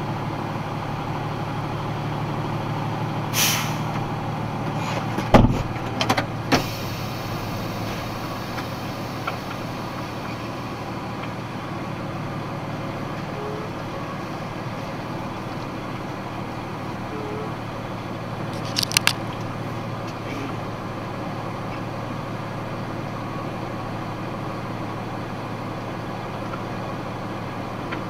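Box truck's engine idling with a steady hum heard inside the cab. About five seconds in comes a loud knock with a couple of clicks, as the driver climbs in and shuts the door, with short hisses just before it and again near 19 seconds.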